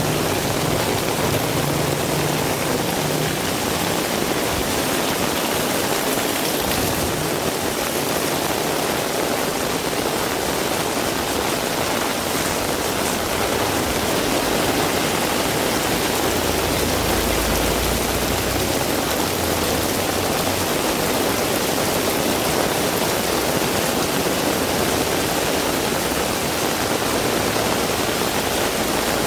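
Heavy rain pouring steadily, a dense even hiss, with a brief low rumble a little past the middle.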